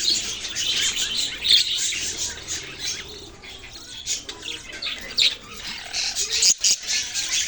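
Small pet parrots chirping and twittering continuously, with many rapid high chirps overlapping. The chirping eases off for a moment about halfway through, then picks up again.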